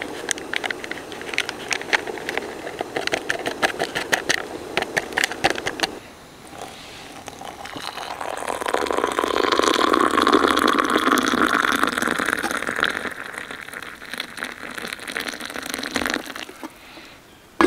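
A foil soup sachet crinkling as powder is tapped out into a mug, then hot water poured from a camping kettle into the mug. The pour starts about seven seconds in, swells, and fades out near the end.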